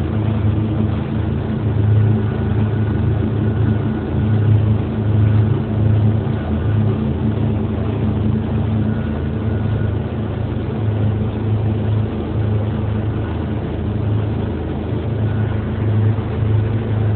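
A motorboat's engine running steadily under way, a low drone that swells and eases in level, over a steady hiss of rushing water and wind.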